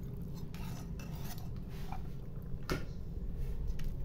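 Metal spoon scraping and stirring cooked aloo pulao in a metal cooking pot: a few short scrapes and clinks, the sharpest one nearly three seconds in, over a low steady rumble.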